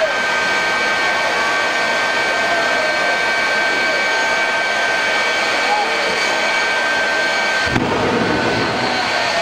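Truck-mounted turbojet engine running steadily: a loud rushing noise with a high, steady whine over it. Near the end the sound shifts briefly, with a deeper rumble coming in and the whine dropping away for a moment.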